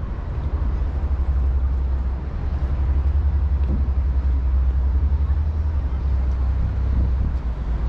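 Outdoor city ambience dominated by a steady low rumble.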